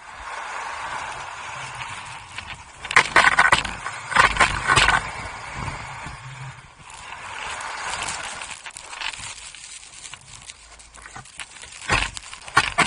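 Skis sliding and scraping over packed snow. The hiss runs steadily, with louder, rougher bursts about three to five seconds in and again near the end.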